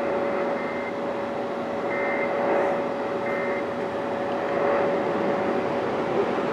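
Steady radio static hiss with a constant low hum tone, and three faint short high-pitched beeps about a second apart in the first four seconds.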